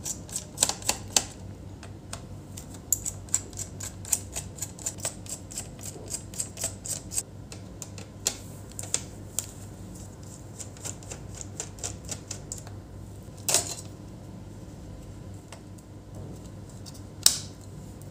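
Small screwdriver working the heatsink and fan screws out of a laptop's base: a quick run of light clicks and ticks for the first seven seconds or so, then sparser clicks with a couple of louder ones later on.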